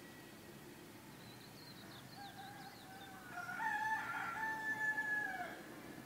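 A rooster crowing once: one long call, starting about two seconds in, rising and held for about three seconds before it drops in pitch at the end. Faint small-bird chirps come just before it, over a steady low background hum.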